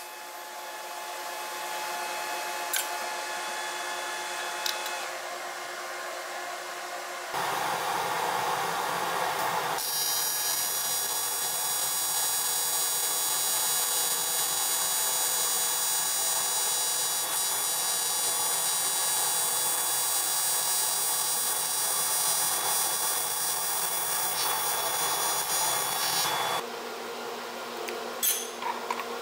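AC TIG welding arc on aluminum buzzing steadily, its tone shifting a few times. Near the end the arc stops and a few light knocks follow.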